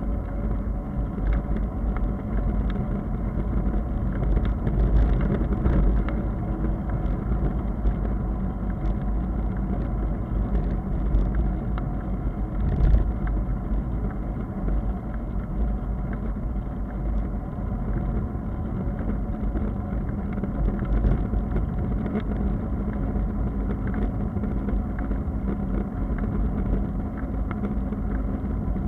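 Steady low rumble of wind and tyre noise picked up by a camera on a moving bicycle on wet asphalt, with small clicks and rattles throughout and a louder bump about 13 seconds in.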